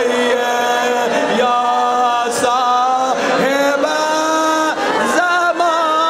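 A man's voice chanting a Muharram lament for Husain's martyrdom in long held notes, bending and gliding between pitches with short breaks between phrases.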